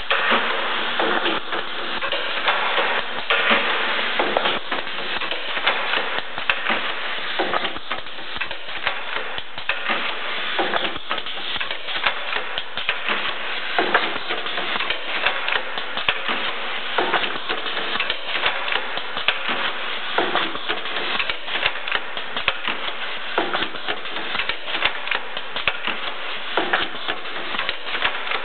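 Pneumatic cheese-box assembling machine running: its air cylinders and mechanisms clack rapidly and irregularly over a steady mechanical noise.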